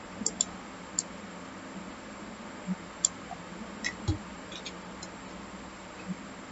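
Scattered clicks of a computer mouse and keyboard: about a dozen short, sharp taps at irregular spacing, over a faint steady hum.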